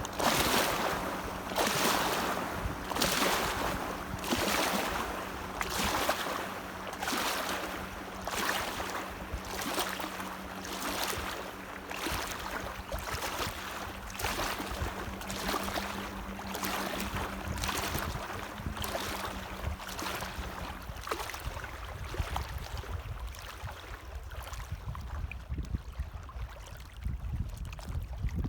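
Small waves lapping and splashing in an even rhythm, about one swish a second, fading away near the end. A steady low hum runs under them and stops about two-thirds of the way through, and low wind rumble comes up late.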